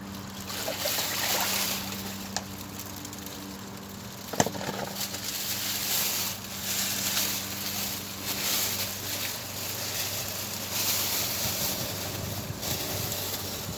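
Nissan Altima CVT transmission fluid draining into a plastic trash bag: a splashing, trickling hiss that swells and fades, with a couple of sharp clicks in the first half.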